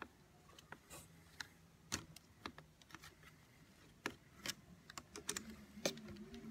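Faint, irregular light metallic clicks and taps of Torx screws being turned out by hand from the rear housing of an Eaton Model 7 hydrostatic transmission.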